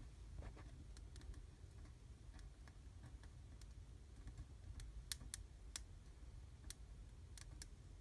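Faint crackling of a fireplace fire burning a spruce branch and paper: scattered small ticks, then a cluster of sharper pops about five to seven and a half seconds in, over a faint low rumble.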